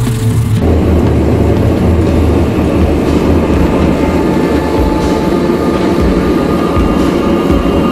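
Gas forge burner running with a steady roar while a steel blade heats inside; the roar starts about a second in, after a short stretch of music.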